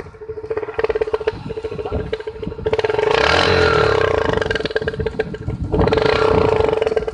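TVS motorcycle running with an add-on wired onto the end of its silencer, meant to make it sound like a KTM: fast, even exhaust pulses over a steady humming note. It is revved hard twice, for about three seconds starting near three seconds in, and again just before six seconds.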